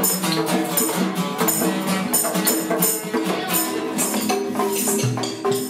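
Music: strummed acoustic guitars over a quick, steady percussion beat.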